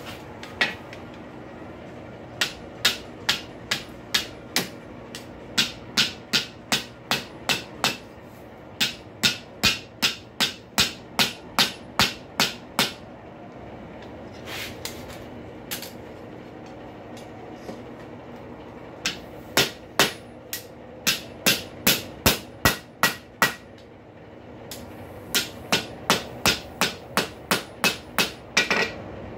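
Blacksmith's hand hammer striking a hot rail spike on an anvil, in runs of several blows about two a second with pauses between, closing the rolled knuckle of a hinge. A steady low hum runs underneath.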